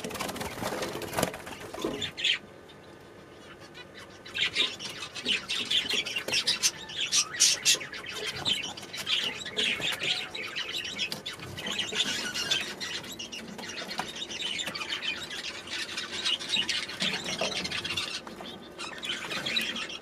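Small aviary birds chirping and calling over one another, with wings flapping now and then. After a short lull about two seconds in, the calling gets busier.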